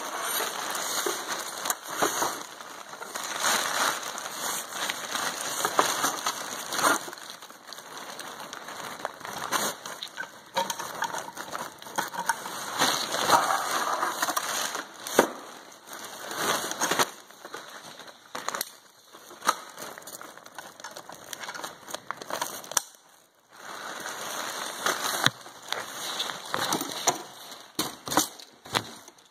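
Rustling and crinkling of an inflatable's nylon fabric as it is pulled out and handled, with scattered knocks and clicks.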